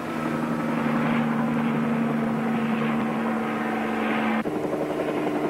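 Bell 47 helicopter's engine and rotor running steadily in flight, a continuous drone with a strong low hum. About four and a half seconds in, the tone changes abruptly to a slightly higher hum.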